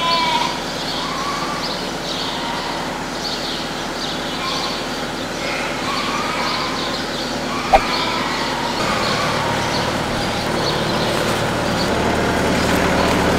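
A large flock of sheep bleating in a barn, many short calls overlapping, over a steady hum; a sharp click about eight seconds in.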